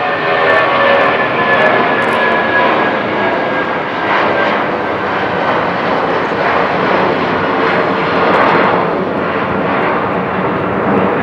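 Boeing 757-200's twin Rolls-Royce RB211 turbofans at takeoff thrust as the jet departs. A fan whine slides slowly down in pitch over the first few seconds, then gives way to a steady, loud jet roar.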